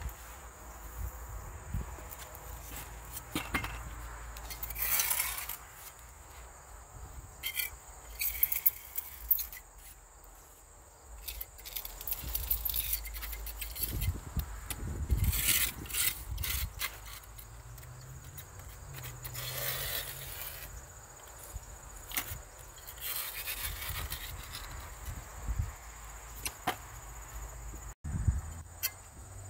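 A hand trowel scraping and rubbing wet mortar along the joints of a glass block window, in several short strokes. A steady high insect drone sounds behind it.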